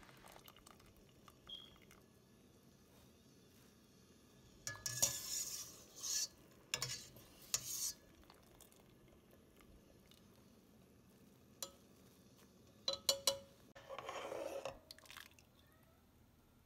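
Wire spider skimmer scraping and clinking against a stainless steel pot as par-boiled basmati rice is tipped in and spread in layers, in two short bouts of scraping with sharp metal clicks. A few more clinks and a brief rushing noise come near the end.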